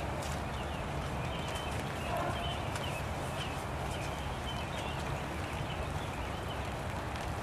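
Steady rain, with irregular drops tapping on open umbrellas.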